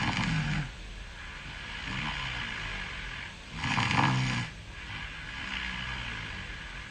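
A person snoring in sleep, at a slow, even rhythm. There is a loud snore at the start and another about four seconds in, with softer breaths between them.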